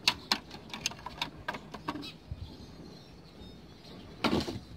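Small, sharp plastic clicks and ticks in a quick irregular run as a printer's pickup-roller shaft and its coil spring are handled, thinning out after about two seconds, then a louder clatter of knocks near the end.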